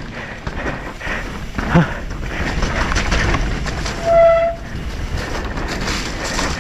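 Mountain bike riding down a wet, muddy downhill trail, with steady wind and rain noise on the camera microphone. About four seconds in, a disc brake gives a brief, steady, horn-like squeal, as wet brakes do under hard braking.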